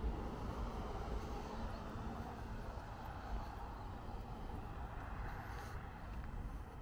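Road traffic on an adjacent road: a car's steady tyre and engine noise swelling and fading slowly, over a low rumble.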